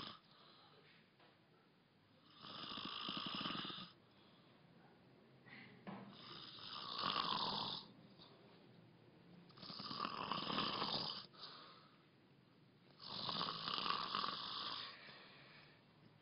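A man snoring in his sleep: four long snores about three and a half seconds apart, with quiet breathing between them.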